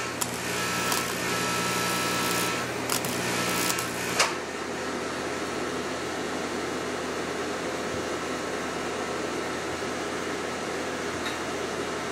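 AC TIG welding arc on a cast aluminium cylinder head: a steady electrical buzz with crackling hiss as 4043 filler rod is fed in. The arc stops suddenly about four seconds in, leaving a quieter steady hiss of shop background.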